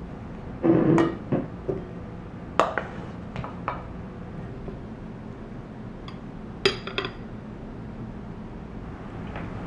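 Wooden spoon scraping and knocking against a stainless steel mixing bowl while a grain salad is served into a glass bowl: a short scrape about a second in and several light knocks over the next few seconds. About seven seconds in comes a sharper clink with a brief ring, as of glass or metal tableware.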